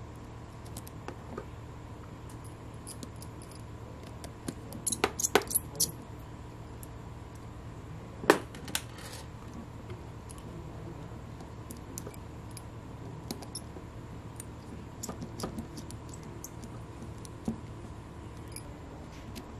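Small clicks and light knocks of hard 3D-printed plastic parts and small metal screws handled by hand, over a steady low hum. A quick run of clicks comes about five seconds in, and the sharpest single click a little after eight seconds.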